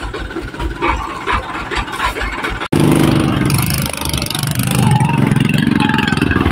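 A truck's diesel engine idling with a low, regular throb; after an abrupt cut about two and a half seconds in, a louder engine running steadily.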